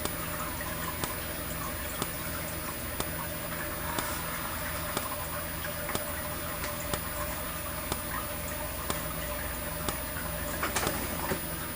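Potter SH-1224 fire alarm strobe flashing, giving a sharp tick about once a second as it fires, over a steady faint hum. A short flurry of louder ticks comes near the end.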